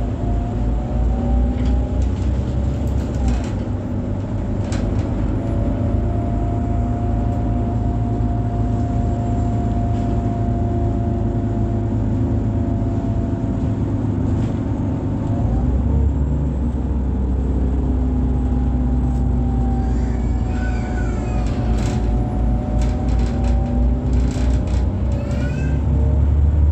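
Irisbus Citelis 18 articulated bus heard from on board, its IVECO Cursor 8 diesel engine running under way with a low rumble. A drivetrain whine holds steady, then rises and falls as the bus changes speed. A few short squeaks and rattles sound in the last third.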